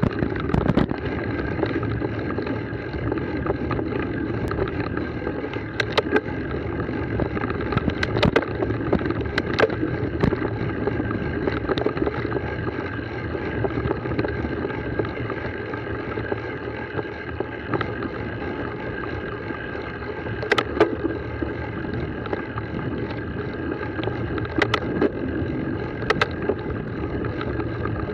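Giant Trance mountain bike rolling down a dirt and rocky trail: a steady rumble and rattle of tyres and bike over the ground, with sharp knocks from bumps every few seconds, the hardest about twenty seconds in.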